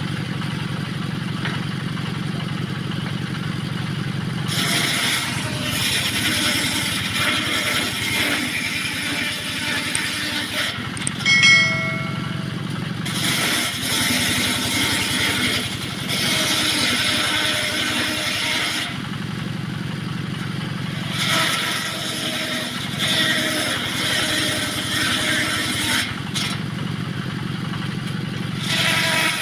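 Engine-driven homemade circular saw ripping small teak offcuts into battens: four cuts of several seconds each, a loud rasping whine of blade in wood, with the engine running steadily in the gaps between. A short squeal about eleven seconds in.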